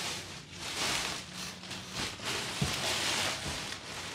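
Clear plastic wrapping crinkling and rustling in uneven bursts as a subwoofer wrapped in it is gripped and turned, with a dull bump about two-thirds of the way through.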